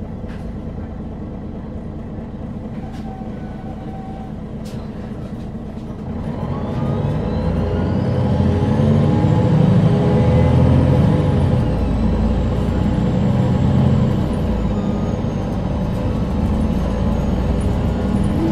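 MAN NG313 articulated bus's 310 hp diesel engine running at a steady idle, then getting louder about six seconds in as the bus accelerates. A whine rises steeply in pitch over the engine note and then holds high.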